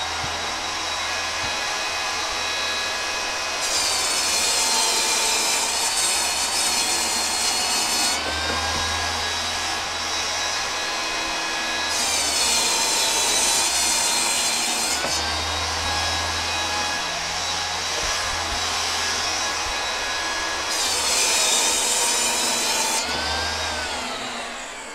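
Table saw running and making three rip cuts through sheet stock. During each cut, a few seconds long, the blade's loud hiss rides over the motor's whine, and the motor's pitch sags under the load. Near the end the saw is switched off and winds down.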